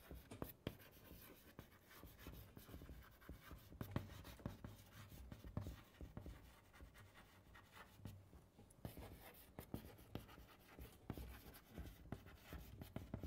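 Faint handwriting: an irregular run of small scratches and taps as the principle of superposition is written out.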